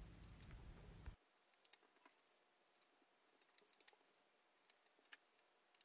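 Near silence: faint, scattered light clicks and taps of paper cutouts being handled and pressed down with double-sided tape. A low background hum cuts off suddenly about a second in.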